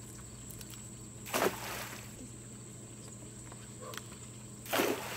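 A monofilament cast net being swung and thrown out from a dock, heard as two short rushes of noise about three and a half seconds apart. The second comes as the net flies out and lands on the pond. Underneath is a steady, high, thin insect drone.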